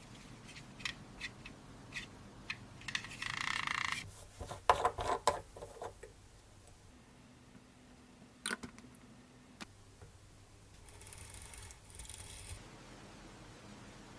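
Small hand-work noises: scattered light clicks and taps, a short scratchy scrape about three seconds in, and a quick run of sharp taps about five seconds in. A brief hiss follows near the end.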